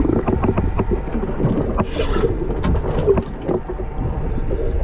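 Muffled underwater sound picked up by a submerged camera: a steady low rumble, likely the boat's running engine heard through the water, with dense crackling and knocks of water against the housing.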